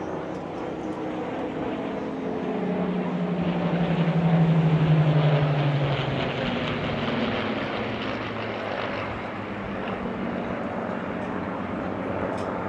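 Piston-engined World War II fighters with Rolls-Royce Merlin V12 engines flying past, their engine drone swelling to its loudest about four to five seconds in and dropping in pitch as they go by.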